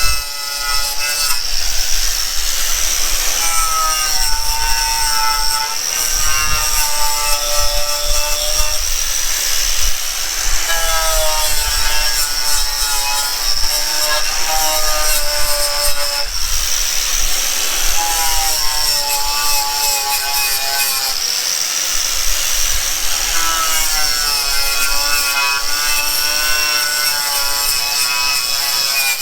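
A power tool running continuously with a steady high whine, scraping or abrading a surface, its pitch shifting as it is pressed into the work.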